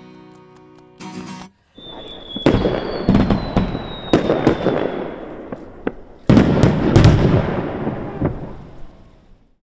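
Aerial fireworks bursting: a high whistle that falls slightly in pitch over the first few sharp bangs, then a heavier volley of bangs a little past the middle, fading out near the end.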